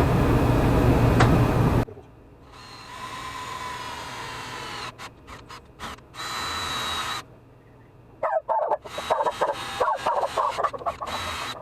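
Electric drill drilling a hole, its motor whining steadily in several short runs. Irregular scraping and clattering follow in the last few seconds. A loud steady noise cuts off abruptly about two seconds in.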